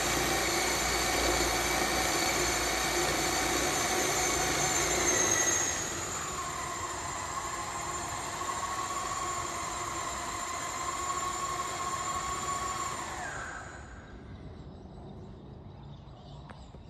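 Remote-controlled helicopter tug's drive whining steadily as it moves the helicopter. About six seconds in the whine drops to a lower, quieter tone, and it fades away about fourteen seconds in.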